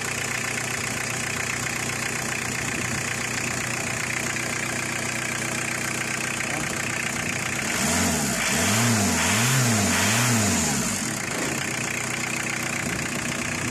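Car engine idling with a steady hum. This engine shakes as a whole at idle, a vibration that new engine mounts have not cured. About eight seconds in, the engine speed rises and falls three times in quick succession, getting louder for about three seconds, then settles back to idle.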